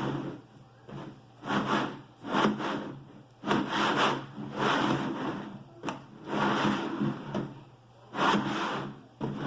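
A series of about six rustling, rubbing strokes, each under a second long, from snack packets and containers being handled.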